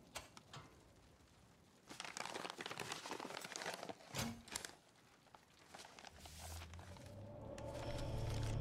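A few clicks at the small keypad safe, then a couple of seconds of paper crinkling and rustling as a manila envelope is pulled out and handled. Low music swells in near the end.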